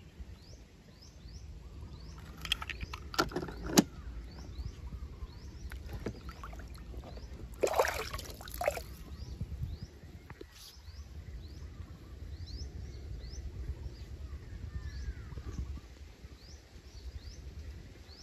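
Toy cars clicking and knocking as they are handled and set down on a wet surface, with a louder rush of noise about eight seconds in. A bird repeats a short high chirp about twice a second over a low outdoor rumble.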